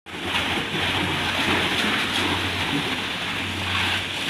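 High-pressure water jet from a pressure-washer hose spraying onto a car's body, a steady hiss of spray and splashing, with a steady low hum underneath.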